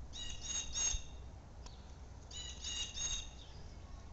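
Blue jay calling: two quick series of three harsh, high notes, about two seconds apart.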